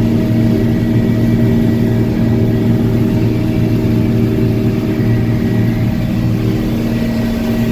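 Combine harvester running steadily while harvesting corn: the engine and threshing drone together with the corn head and its chopping rolls, a loud, even hum with no change in pitch.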